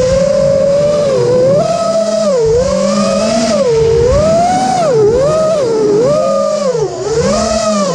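5-inch FPV freestyle quadcopter's motors and propellers whining, heard from the camera on board. The pitch swoops up and down about once a second as the throttle is pushed and eased through the manoeuvres.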